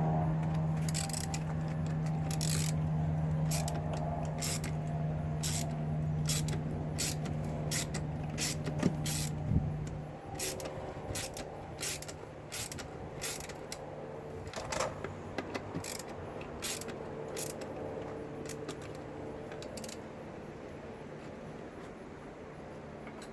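Irregular clicks and creaks of hand work on a Mercruiser Alpha sterndrive's new lower shift cable and bellows as they are threaded and fitted into the drive housing. A steady low hum runs under them and stops about ten seconds in.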